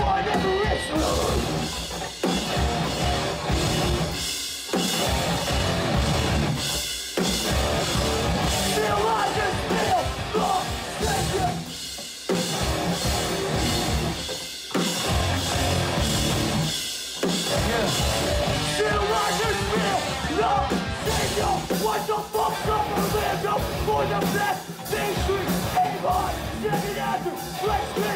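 Live rock band playing loud through a club PA: electric guitars, bass and a drum kit, with a singer yelling into the microphone. The band stops dead for a split second several times in a stop-start pattern.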